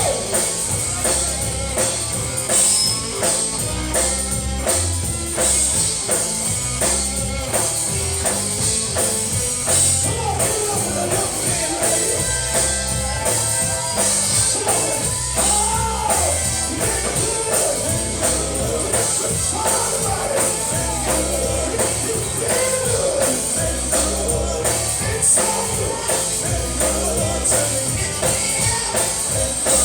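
Live gospel music: singing over a band with drum kit and tambourine keeping a steady beat.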